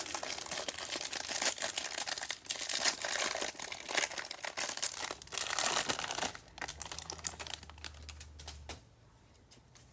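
A trading-card hanger box and its packaging being torn open, with dense crinkling and tearing for about six seconds that then tapers off.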